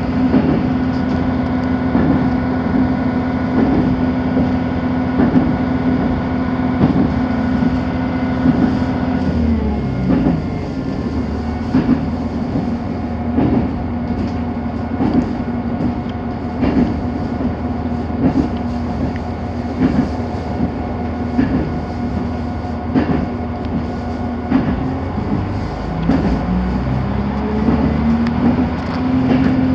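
RA3 diesel railbus heard from inside the passenger cabin while running. Its wheels knock over rail joints about every second and a half over a steady drive hum. The hum drops in pitch about nine seconds in and climbs back near the end.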